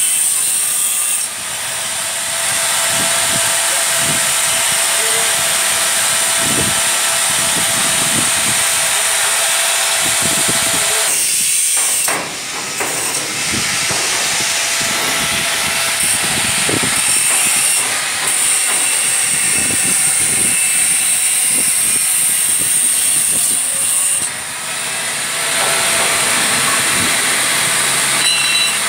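Stick (arc) welding on a steel pipe frame: a steady frying hiss with crackles, breaking off briefly three times, about a second in, near halfway, and at about 24 seconds.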